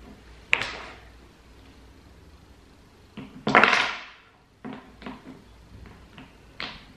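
Wooden Jenga blocks knocking as they are set down and stacked on a tower on a table: scattered sharp taps, with the loudest clatter about halfway.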